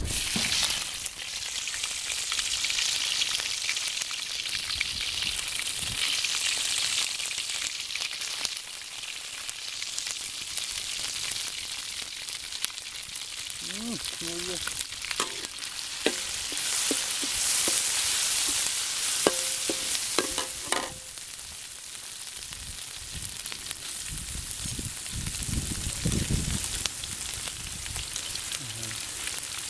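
Chilli and spice paste sizzling as it fries in hot oil in an aluminium wok. The sizzle starts suddenly as the paste drops into the oil, and a metal spoon stirs it.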